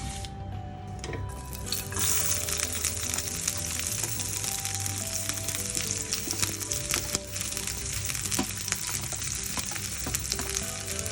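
Food sizzling as it fries in hot oil in a pan, starting about two seconds in and continuing steadily. Background music with a steady bass plays underneath.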